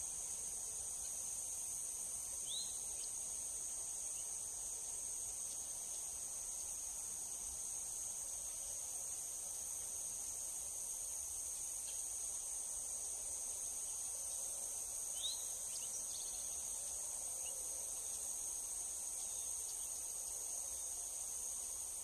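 Steady high-pitched insect chorus, with two short rising chirps: one about two and a half seconds in and one about fifteen seconds in.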